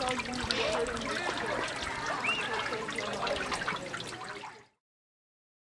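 Shallow lake water trickling and lapping as swimmers move slowly through it, stopped by a quick fade to silence about four and a half seconds in.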